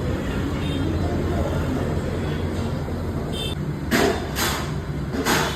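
Busy background din: a steady low rumble with faint voices, broken near the end by three sharp clatters.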